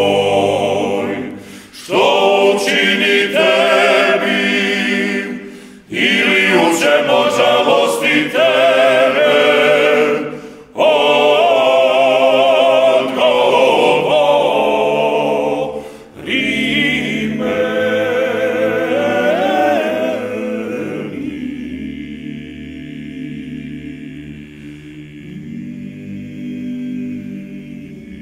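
Male klapa ensemble singing a cappella in close multi-part harmony, in loud phrases with short breaks between them. From about two-thirds of the way in, the voices drop to softer, long-held chords.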